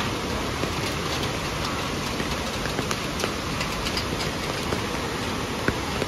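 Steady rain falling, with many small drop ticks over an even rush of noise.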